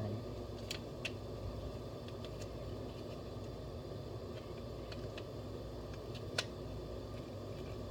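A few light clicks and taps of plastic G.I. Joe toy parts being handled and pressed together, the sharpest about six seconds in, over a steady low room hum.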